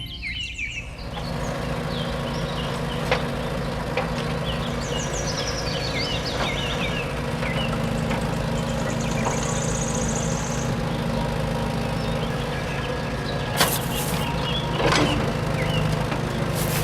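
A vehicle engine running steadily, with a few sharp knocks and bird chirps over it.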